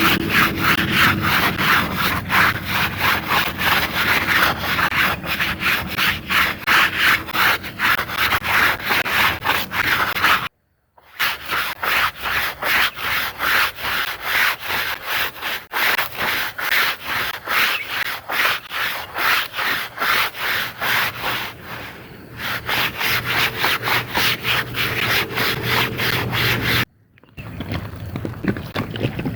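A carpet being scrubbed in fast, even rubbing strokes, about four a second, stopping briefly twice.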